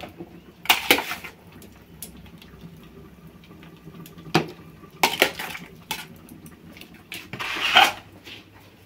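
Pots and kitchen utensils clattering as food is handled: sharp clinks and knocks in short clusters, with a longer rasp near the end.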